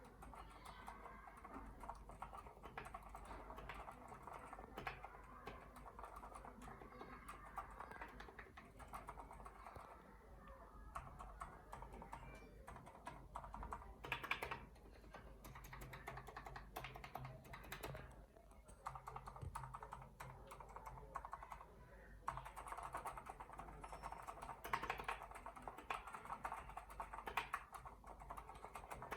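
Typing on a mechanical keyboard with linear switches: a steady run of quick keystroke clacks, denser in some stretches and thinning out in short lulls.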